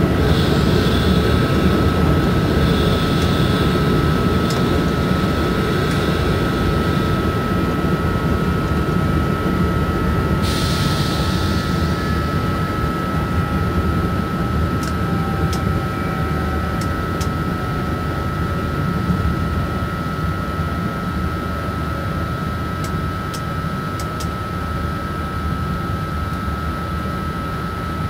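Inside the cab of an SNCF BB 27300 electric locomotive under way: a steady rumble of wheels on rails with a constant high whine, gradually getting quieter. A short hiss comes about ten seconds in, and a few faint clicks come in the second half.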